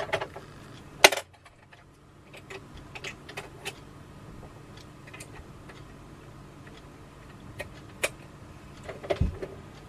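Scattered clicks and knocks of a sewing machine being handled and shifted on a table. The sharpest click comes about a second in, and a duller thump comes near the end.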